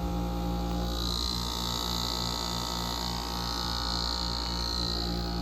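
1986 Gibson 8,000 BTU window air conditioner running steadily: rotary compressor hum and fan air noise. A high hiss comes in about a second in and fades near the end.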